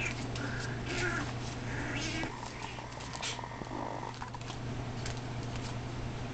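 Puppies whining and yipping in short high cries during play, with one longer drawn-out whine about two seconds in, over a steady low hum.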